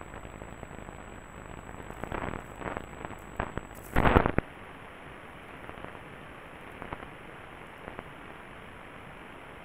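AM radio receiver hissing with static crashes from lightning in a thunderstorm: a flurry of crackles about two seconds in, one loud short crash about four seconds in, then steady hiss with a couple of faint clicks.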